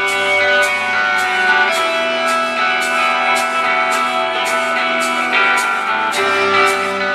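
Live rock band playing in an arena, heard through a small camcorder's microphone: ringing electric guitar chords that change a couple of times, over a steady cymbal tick about twice a second.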